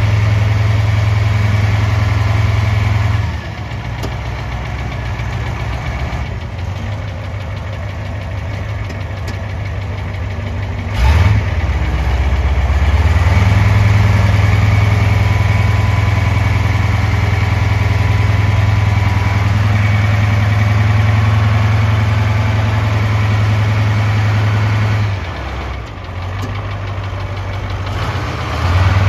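Diesel engine of a 1978 Caterpillar 613B motor scraper running as the machine is driven. It eases off about three seconds in and comes back up after a single sharp clack about eleven seconds in. It runs harder until it eases again near the end.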